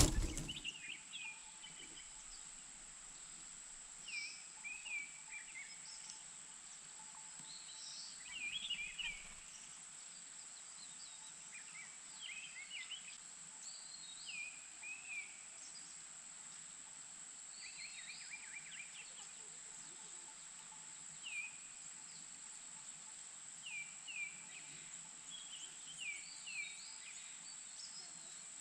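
Small birds chirping: short, high, downward-sliding chirps, singly and in quick runs every second or two, over a steady high-pitched whine.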